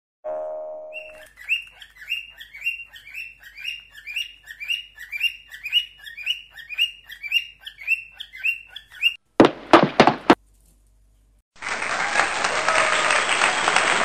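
Lutino cockatiel giving a long series of short rising chirps, about two a second, for some eight seconds. After the chirps come a few sharp cracks, a short pause, and then applause near the end.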